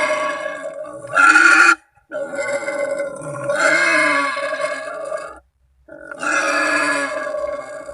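Wild boar screaming in long, drawn-out, rough calls, three in a row with short silent pauses between them: the call a boar uses to summon companions or rivals, used as a hunting lure.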